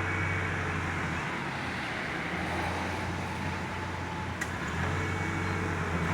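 Truck engine running steadily with a low hum, waiting to pull on a rope tied to a tree branch.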